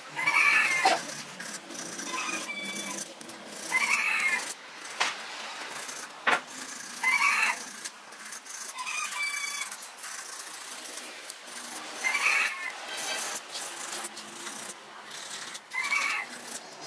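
A thin wooden stick rubbed and scraped inside the drilled holes and slots of a turned hardwood vase, squeaking in short bursts every few seconds, with a couple of sharp clicks.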